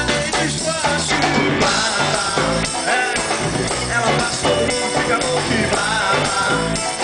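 Live band playing an upbeat Brazilian axé song with electric guitars, electric bass, keyboard and drums, a male singer's voice over it.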